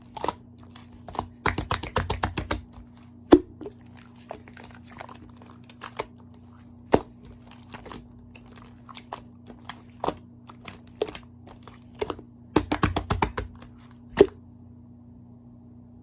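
Slime being worked by hand, giving sharp crackling clicks and pops, with single snaps and two quick flurries, stopping about fourteen seconds in.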